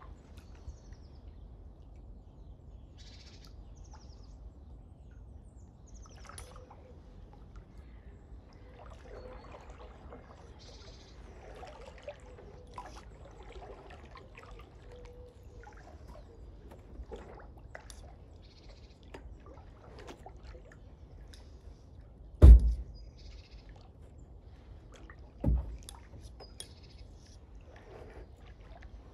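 Quiet water ambience around a kayak on a canal, with faint water trickling and small birds chirping now and then. About two-thirds of the way in come two heavy thumps about three seconds apart, the first much louder.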